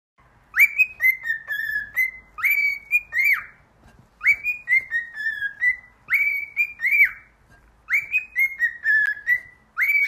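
Cockatiel whistling a short tune of quick rising-and-falling notes. The tune is repeated three times with brief pauses between.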